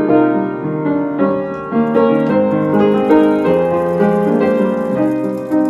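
Background piano music: a steady run of notes struck one after another.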